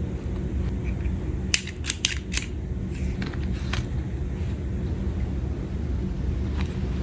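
Sharp clicks and taps from hands handling stationery and its plastic blister packaging, bunched about two seconds in with a few more later, over a steady low hum.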